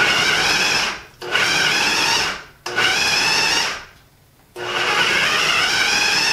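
Food processor motor run in four short pulses, each a second or so long, grinding cubes of hard Romano cheese into crumbs.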